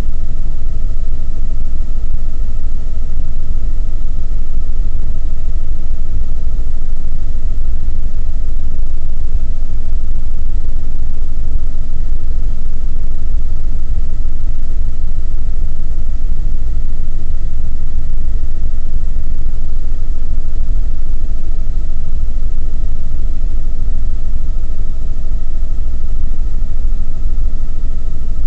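Helicopter cabin noise in flight: a loud, steady low rumble from the rotors and engine, with a constant whine held on one pitch and its overtone.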